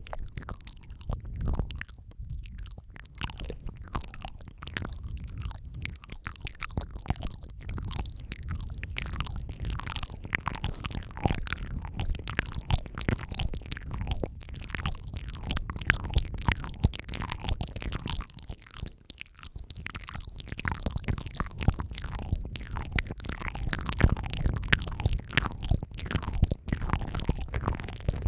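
Close-miked ASMR mouth sounds in overlapping layers: wet clicks, smacks and licking noises, many per second, over a low rumble.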